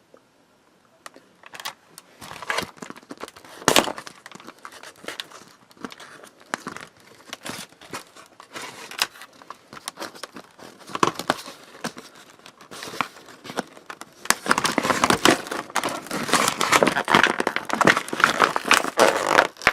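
Screwdriver set's packaging crinkling and crackling as it is handled: scattered crackles at first, then dense, continuous crinkling over the last five seconds.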